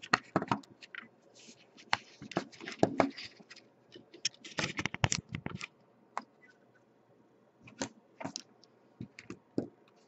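Handling noise on a work table: irregular clicks, taps and scraping rustles as a piece of card and small side cutters are moved about and set down. It is busiest in the first half, goes quiet for a couple of seconds, then returns near the end.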